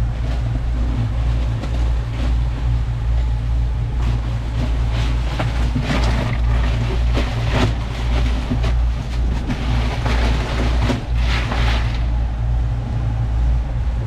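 Fishing boat's motor running with a steady low drone, with a rushing noise that swells and fades several times between about five and twelve seconds in.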